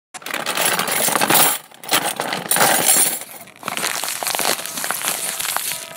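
Crackling, clinking noise full of small sharp clicks, in three stretches of about a second and a half each with short gaps between.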